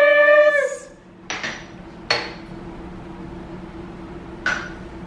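Glasses clinking during a toast: three sharp clinks with a short ring, about a second in, about two seconds in, and near the end.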